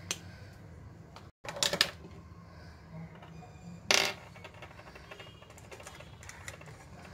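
Small hard objects clicking and clattering on a tabletop as a pen, a paintbrush and seashell paint pans are handled. There is a quick cluster of clicks just under two seconds in and a louder clatter about four seconds in.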